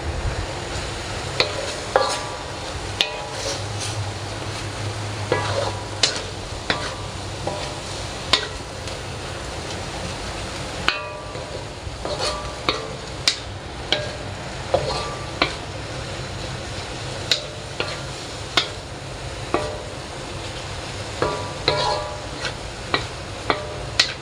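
Fried noodles cooking in a covered pan: a steady sizzle with sharp pops and crackles at irregular intervals.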